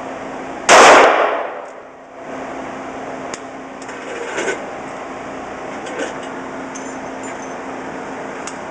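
A single handgun shot about a second in, loud and echoing off the walls of an indoor range. After it comes a steady ventilation fan hum, with a few faint metallic clicks as the gun is handled.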